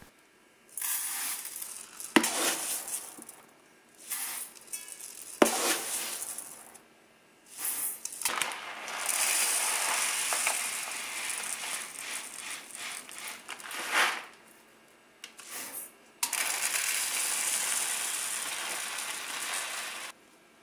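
Dry grains pouring: white rice scooped and tipped into a rice cooker's stainless inner pot in short rattling bursts, then sticky barley and a mixed-grain blend poured from their bags into a plastic measuring cup in the pot, each a long steady hiss of falling grain.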